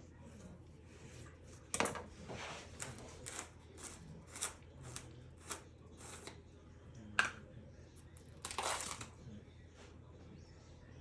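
Light rustling, tapping and clicking of hands handling a new container of barbecue rub and its packaging, with a longer rustle near the end.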